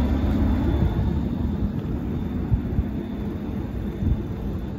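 A low, steady vehicle rumble, slowly easing in level.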